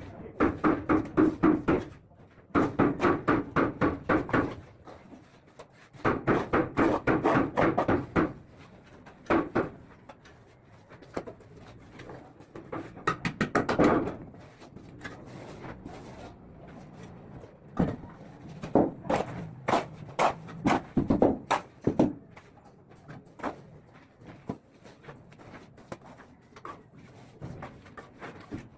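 A hand float scraping and smoothing fresh cement plaster on a concrete window ledge. It comes in bursts of quick back-and-forth strokes through the first eight seconds or so, then scattered lighter scrapes and taps.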